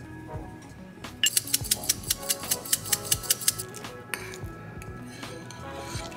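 A metal fork clinking against a ceramic bowl while mashing avocado: a quick run of sharp clicks, about six a second, for a couple of seconds, over background music.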